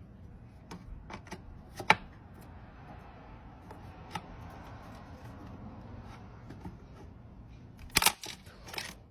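Scattered clicks and knocks of hard objects being handled, with a sharp knock near two seconds and a louder clatter of several knocks around eight seconds.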